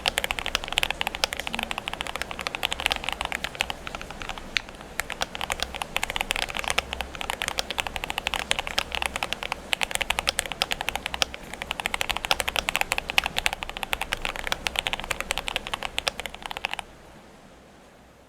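GMMK Pro mechanical keyboard with lubed Akko CS Starfish switches, tuned Durock v2 stabilizers, and PE foam, polyfill and Tempest tape mods, being typed on fast and continuously. The keystrokes stop abruptly about 17 seconds in.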